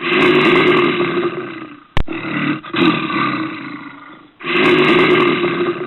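A large animal calling three times, each long call starting loud and fading away over about two seconds, with a sharp click about two seconds in.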